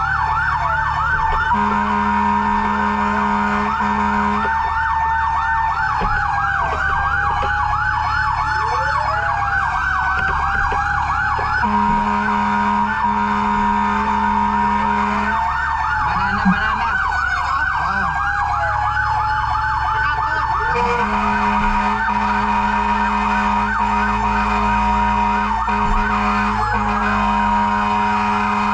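Fire truck sirens sounding continuously: a fast yelp with slower wailing sweeps crossing it, over a steady engine rumble. A low steady horn blares three times, each blast lasting several seconds.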